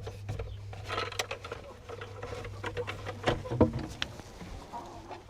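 Scattered light clicks and knocks of hen eggs being handled and set down while they are sorted, over a steady low hum.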